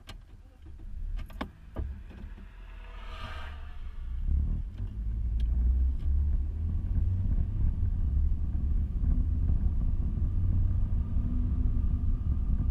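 Inside a car's cabin: a few clicks and a brief hiss, then from about four seconds in a low engine-and-road rumble builds as the car pulls away, settling into a steady drone while it drives.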